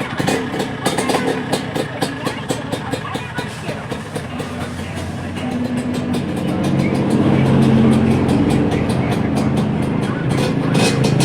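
Yamaha DT125 two-stroke single-cylinder motorcycle engine running. For the first few seconds it fires in a rapid, uneven crackle, then from about halfway through it picks up to a louder, steadier engine note that it holds.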